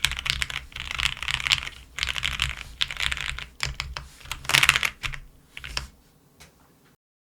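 Typing on a custom 4GT Silhouette mechanical keyboard with lubed Cherry MX Vintage Brown tactile switches on a PC half plate: a fast, irregular run of keystroke clacks with denser flurries. The typing thins out and stops about six seconds in.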